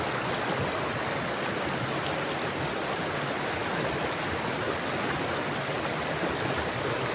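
Small mountain stream rushing and splashing over rocks: a steady, even rush of water.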